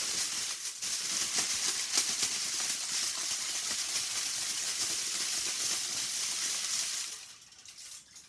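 A sheet of tin foil shaken hard in both hands, a loud continuous crackling rattle that dies away about seven seconds in.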